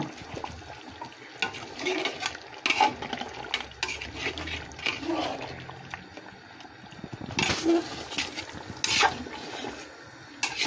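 Chicken and potato curry being stirred in a large metal pot: irregular wet scrapes and knocks of the spoon against the pot, loudest about seven to nine seconds in.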